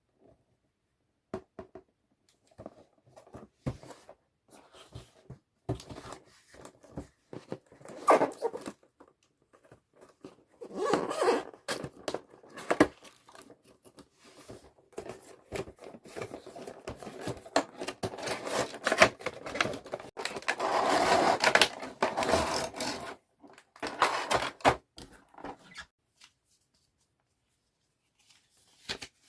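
Packaging being handled and opened by hand: scattered clicks and taps, with longer stretches of tearing, scraping and rustling, the loudest in the middle.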